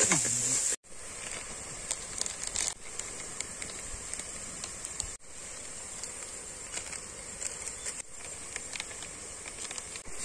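Chicken and onions sizzling as they fry in a metal pot over a wood fire, a steady high hiss with small clicks and crinkles from the ladle and a spice packet. The sound cuts out briefly four times.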